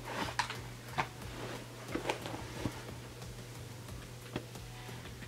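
Handling noise from a sheepskin boot being turned in the hands close to the microphone: scattered soft taps and rustles, about half a dozen, over a steady low hum.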